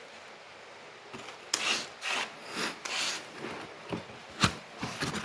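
A run of short rubbing and scraping strokes from things being handled, starting about a second in, with one sharp click about four and a half seconds in.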